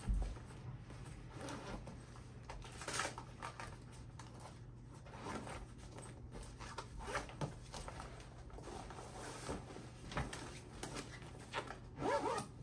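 A fabric backpack being packed by hand: the nylon rustles and items knock lightly inside it, and a zipper is pulled, most strongly near the end.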